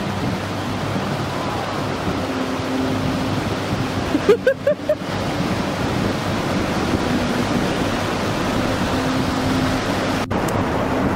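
Ocean surf breaking and washing in a steady rush. About four seconds in, a brief run of four or five short rising cries.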